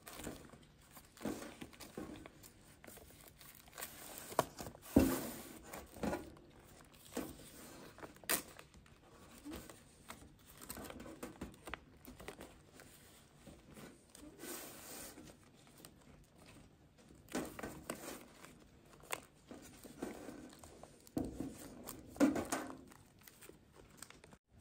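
Irregular handling noises: rustling and crinkling with scattered clicks and knocks, the sharpest about five seconds in and again near the end.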